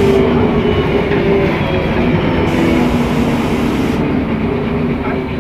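Mercedes-Benz O500MA articulated city bus under way, heard from on board: a steady diesel engine drone over a dense road rumble, its engine note falling slightly. The uploader says this bus has a peculiar sound compared with the other O500MAs in the system.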